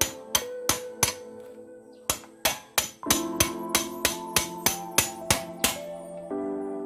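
Hammer blows on a metal drift rod driving out a motorcycle's swingarm pivot bolt, about three sharp strikes a second with a short pause just before the middle. Background music plays underneath.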